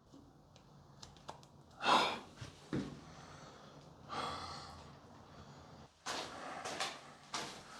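A man's breaths and sighs, with a few small clicks and knocks between them.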